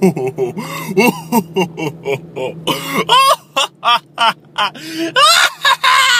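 A man's loud wordless vocal sounds, short yelps and sung-like glides in quick succession, the loudest after about five seconds. Under them runs a steady low car-cabin hum.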